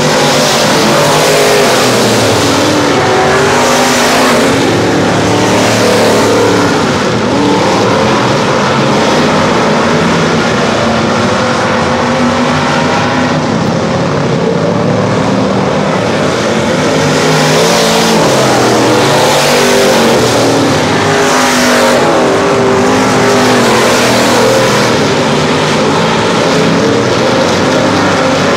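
Several race cars running laps on the track, their engines revving. The sound swells repeatedly as cars pass close by, one after another.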